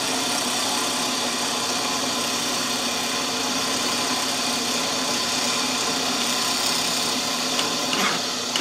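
Milling machine running steadily, its end mill cutting along a wooden banjo bridge blank held in a jig: the final light cleaning pass to bring the bridge foot to depth. Motor hum and the hiss of cutting wood hold steady throughout.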